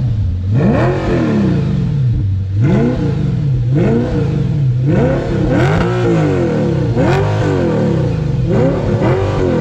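The 2009 Audi R8's 4.2-litre V8 free-revved from behind the car: about seven quick blips of the throttle, roughly one a second, the engine note rising sharply and falling back each time.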